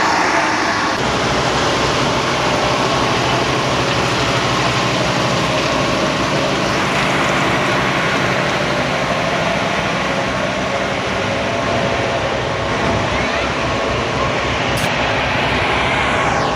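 Heavy railway track-maintenance machine running: a steady, loud diesel engine with dense mechanical noise over it.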